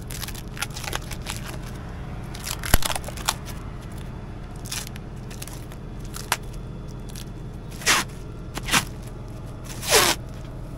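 Plastic stretch film for a McHale Fusion3 Plus baler crackling and being peeled and handled off the roll by hand, with scattered clicks and a few louder drawn-out rips about eight and ten seconds in, over a steady low hum.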